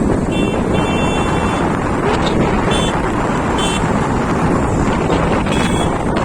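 Steady loud rush of wind buffeting the microphone. A few short, high-pitched chirps come through it: two in the first second and a half, then others near three, four and six seconds in.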